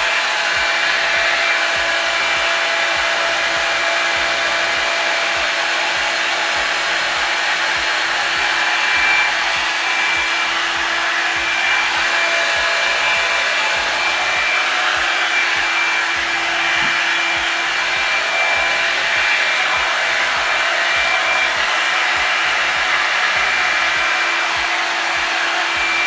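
Revlon One-Step hot-air brush hair dryer running steadily on high: a constant rush of air with a steady whine over it.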